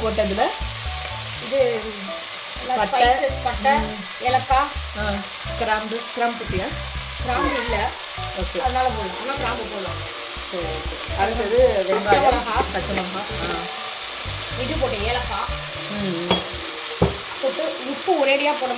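Sliced onions and green chillies frying in oil in an aluminium pot, sizzling steadily. A metal spoon stirs them, scraping and knocking against the pot now and then.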